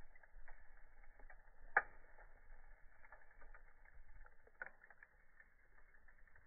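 Faint scattered clicks and crackles over a low hiss, with one sharper snap about two seconds in and another near five seconds.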